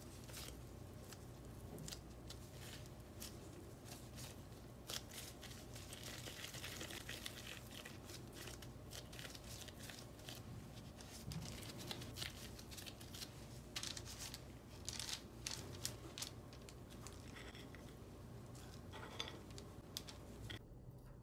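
Gloved hands squishing and pressing soft cookie dough into balls on parchment paper: faint, irregular sticky clicks and crinkling of the gloves and paper.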